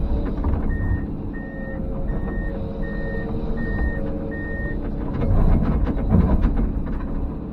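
Komatsu PC210 excavator's diesel engine running while its travel alarm beeps six times, about one and a half beeps a second. About five seconds in, a louder spell of crunching and crashing as the mobile home's brittle walls break apart.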